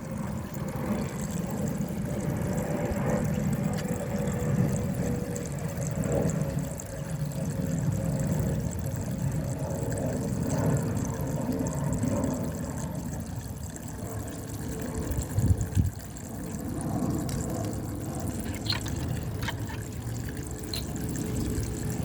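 Water swirling and splashing through a small 3D-printed vortex water turbine model, fed by a small electric pump, with a steady low hum underneath. A few small clicks near the end.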